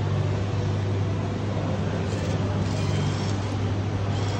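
Steady low machine hum, with a short faint whirr about two and a half seconds in as the vending machine's bill acceptor draws in a banknote.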